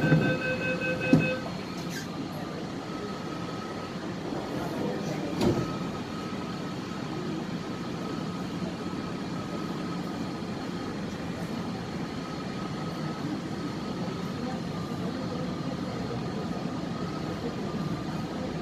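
Door-closing warning beeps on an MTR C-Train electric train stop about a second in as the doors shut with a thud, the loudest sound. A second knock follows a few seconds later, then the train runs on with a steady rumble and a faint steady whine.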